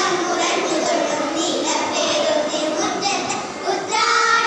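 A group of young girls singing a song together in unison, with held notes near the end.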